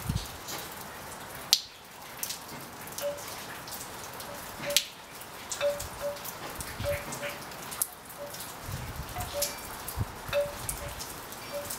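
Steady rain storm: a constant hiss of falling rain with single drops ticking sharply, the sharpest hits about one and a half and five seconds in, and frequent short, pitched plinks of dripping water.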